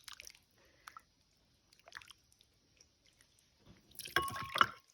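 Light clinks and small wet sounds of soup being served and spooned from a bowl, with a short louder clatter about four seconds in.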